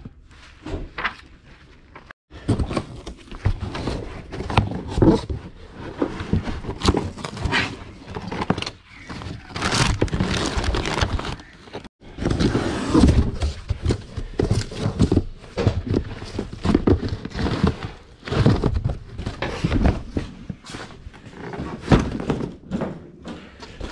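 Stored items being rummaged through and handled: an irregular run of knocks, thuds and rustling, breaking off abruptly twice, about two and twelve seconds in.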